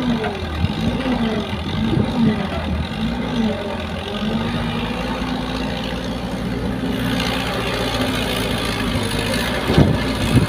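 Caterpillar 312 excavator's diesel engine working under hydraulic load while digging, lifting and swinging a bucket of soil. Its pitch dips and recovers repeatedly at first, then holds steady. A few knocks near the end as the load tips into a dump truck bed.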